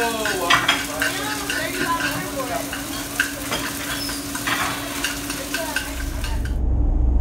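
Food sizzling on a diner's flat-top grill, with short clicks and clatter of utensils and plates over a steady hum. Near the end it gives way to the low rumble of a car interior on the road.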